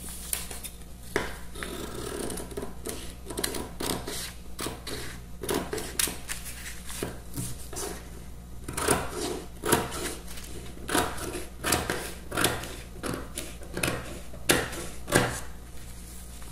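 Scissors cutting through sheets of pattern paper: a run of short snips with paper rustling as it is turned and held, the snips coming more often in the second half.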